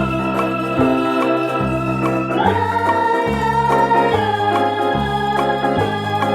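Instrumental background music: sustained keyboard chords over a bass line that steps to a new note about once a second.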